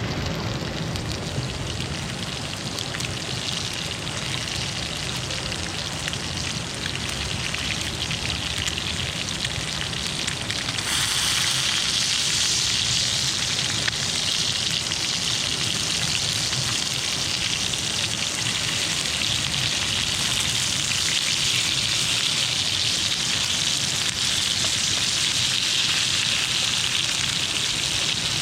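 Fish frying in hot oil, a steady sizzle, with heavy rain falling; the hiss grows louder and brighter about eleven seconds in.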